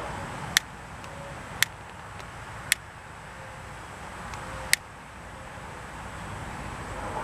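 Barbecue lighter's igniter clicking four times, irregularly about a second apart, as it is held to tire foam that does not catch fire. A steady low hiss lies under the clicks.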